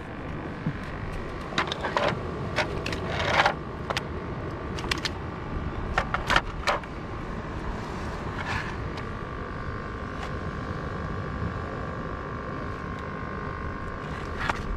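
Scattered sharp clicks and knocks of plastic fishing gear and a fish measuring board being handled, some in quick clusters in the first half, over steady wind noise on the microphone. A faint steady high tone runs under the second half.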